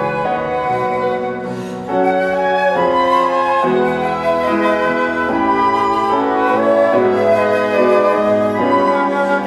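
Flute music: a slow melody of held notes over a lower sustained accompaniment. It softens briefly about two seconds in, then comes back fuller.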